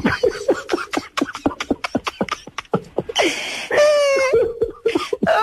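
A man laughing hard in rapid, choppy bursts, with one longer breathy, falling laugh about three seconds in.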